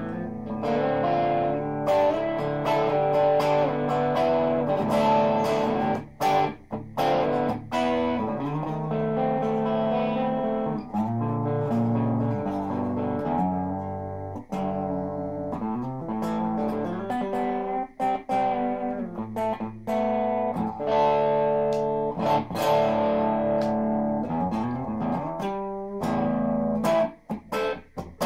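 Peavey Cropper electric guitar played through an Orange Micro Terror amp head and a 1x12 cabinet with a Celestion Vintage 30 speaker: chords and short melodic phrases with a light drive, broken by a few sharp stops.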